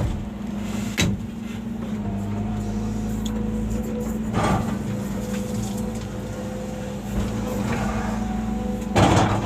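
Volvo excavator's diesel engine running steadily, with short knocks or clanks about a second in, again midway, and a louder one near the end.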